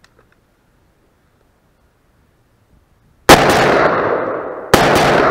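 AR-15 rifle firing two shots about a second and a half apart, each loud crack followed by a long echoing tail.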